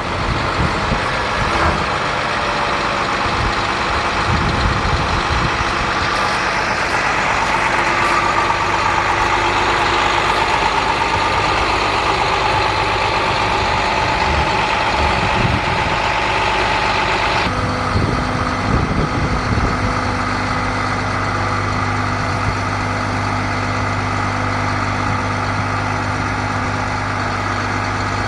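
International 4300 medium-duty truck's diesel engine running steadily, with a higher whine that cuts off abruptly about 17 seconds in, leaving a steadier low hum; a few knocks come early and again just after the whine stops.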